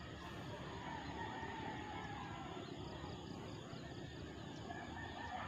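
Quiet rural field ambience: a steady low rumble with a few faint, distant bird calls.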